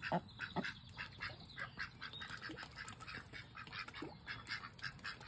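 Ducks giving a run of short, faint quacks and chatter, several calls a second.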